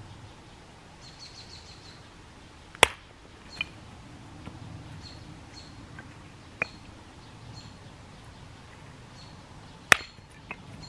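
A hatchet chops wood on a log chopping block. There are two sharp chops, one about three seconds in and one near the end, with lighter knocks between them. A bird chirps repeatedly in the background.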